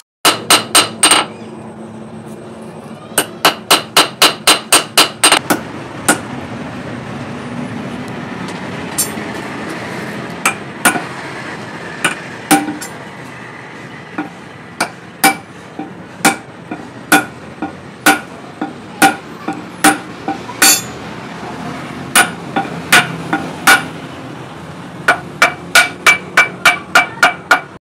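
Hand hammer blows on a steel hammer head, driving it down onto its wooden handle. Fast runs of strikes come at about four a second near the start and near the end, with slower single blows about a second apart in between.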